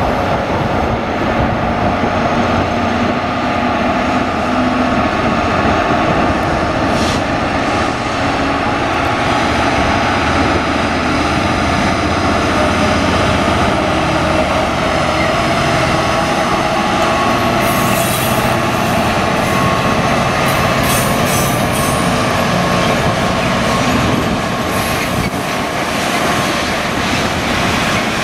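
Euro Cargo Rail Class 247 (Class 66) diesel locomotive working hard as it pulls a tanker train away, its EMD two-stroke V12 running steadily under heavy load. In the second half, the wagon wheels squeal and click over the track.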